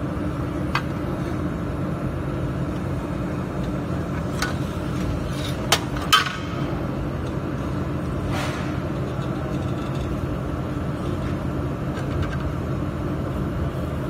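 Steady hum from the handheld fiber laser welding machine's cooling unit, with a few light metallic clinks from stainless steel plates being handled. The two loudest clinks come close together about six seconds in.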